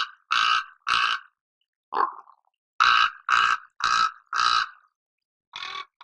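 Crow cawing in quick series: three caws in a row, a single caw about two seconds in, four more in a steady run a second later, and a fainter caw near the end.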